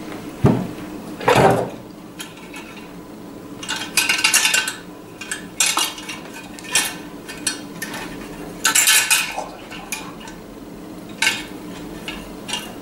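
Metal clattering and rattling in about ten short bursts, some single knocks and some longer rattles, as a small wire-framed metal ornament is picked up and handled.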